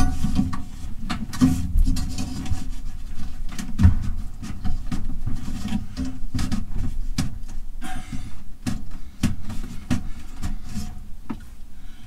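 Irregular knocks, clicks and dull thumps as a panel above a built-in microwave is pushed and worked back into place by hand.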